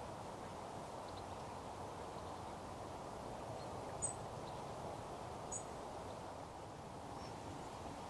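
Faint outdoor field ambience: a steady low noise, with two short, high chirps from a small bird about four and five and a half seconds in.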